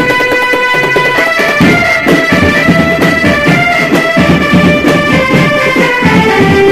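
Marching band playing: a melody of held notes moving from pitch to pitch over dense, steady drumming.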